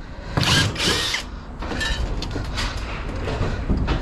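Hand-held tool work on scrap metal: a loud scraping burst about half a second in, then a run of irregular metal clicks and knocks as parts are worked off.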